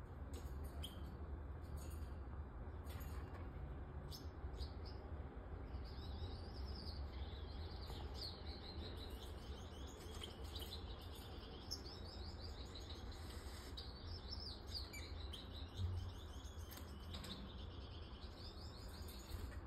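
Splendid parakeets twittering: runs of quick, soft high chirps, busiest through the middle, over a steady low hum, with one soft bump near the end.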